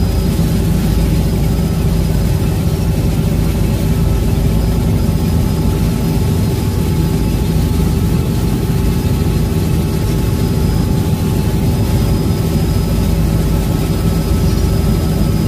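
Robinson R66 helicopter in cruise flight, heard from inside the cabin: the steady drone of the rotors and Rolls-Royce RR300 turbine engine. A few constant tones sit over a low rumble.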